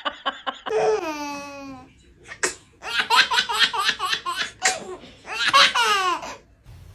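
Laughter in several long, rapid-pulsed runs, with a drawn-out falling voiced sound about a second in.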